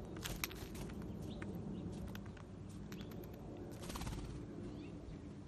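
Faint sharp taps and clicks, scattered through the first second, then a quick cluster about four seconds in: a California scrub-jay moving on a concrete railing and taking off.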